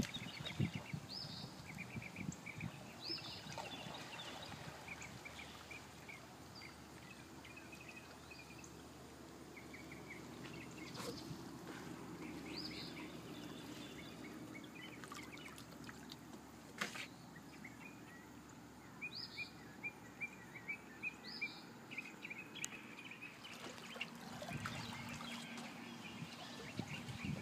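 A golden retriever paddling through lake water, with soft splashing and trickling. Birds call over it: a short high note repeated several times and bursts of chirping.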